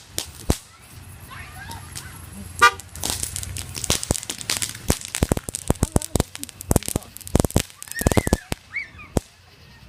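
Fireworks going off: a quick run of sharp pops, bangs and crackles, thickest from about three seconds in until near the end.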